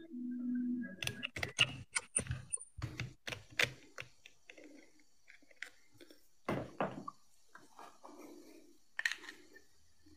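Irregular plastic clicks, taps and knocks from a small plastic gadget being handled and fitted together, densest in the first few seconds, with a few more later.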